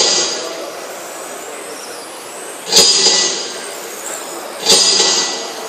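Radio-controlled touring cars racing on a track: a steady high whine with the hiss of tyres on the surface. Sudden loud bursts of noise come about three seconds in and again near five seconds, each fading within half a second.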